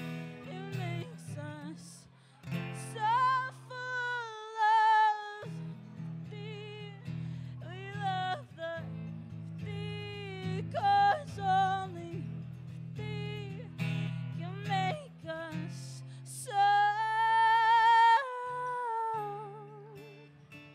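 A woman singing to her own acoustic guitar: steady chords underneath, and a melody with long held notes sung in wide vibrato, twice, the second time near the end.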